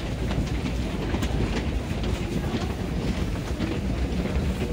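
A packed crowd riding a station escalator: scattered footsteps and shuffling clicks over a steady low rumble.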